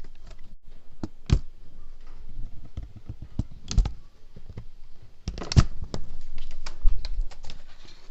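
Plastic clicks, taps and knocks as a Dell laptop's keyboard is pried loose from the laptop's deck: irregular snaps of clips and plastic, with a few louder knocks among them.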